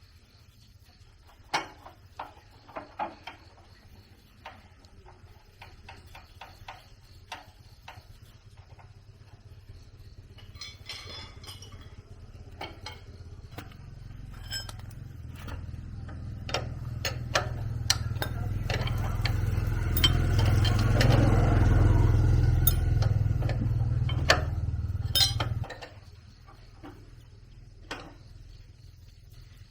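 Metal tools clinking and knocking against metal parts during workshop repair work, while a low rumble swells over several seconds and then cuts off suddenly.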